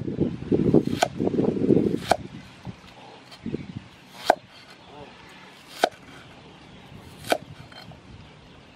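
Meat cleaver slicing an onion on a wooden chopping board: five sharp knocks of the blade striking the board, about one every second and a half. A louder, rough low sound fills the first two seconds.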